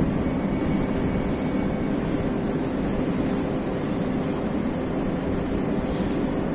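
Steady industrial machinery noise: a constant heavy drone with faint hum tones and a high hiss over it, unchanging throughout.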